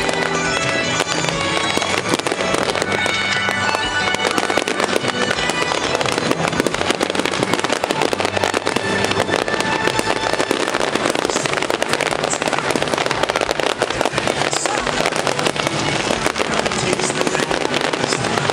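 Fireworks display going off in dense, rapid crackling and popping bursts, with show music playing underneath.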